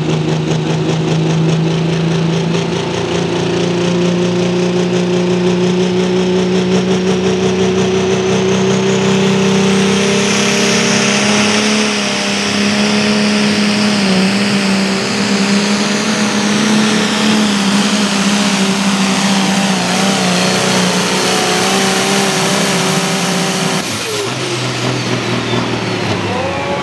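Light pro stock pulling tractor's 466 cubic inch turbocharged diesel engine held at full throttle under load as it drags a weight-transfer sled: a loud, steady engine note with a high turbo whine over it. About 24 seconds in, the engine drops to a lower pitch as the throttle comes off at the end of the pull.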